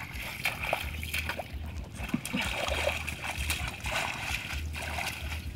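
Hands splashing and sloshing through shallow muddy paddy water and wet rice straw while grabbing for fish, with irregular small splashes throughout.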